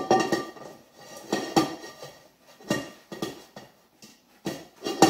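Stainless steel inner pot of an 8-quart Instant Pot clanking and ringing as it is handled and wiped out by hand with a paper towel: a series of sharp metallic knocks, each with a brief ring.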